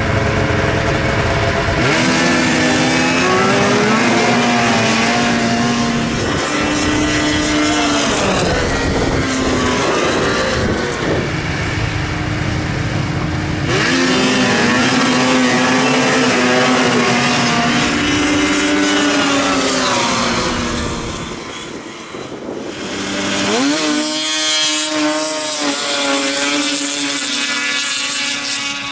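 Snowmobile engines launching at full throttle down a drag strip, their pitch climbing steeply as they accelerate and then holding high. Three runs start, about two, fourteen and twenty-three seconds in.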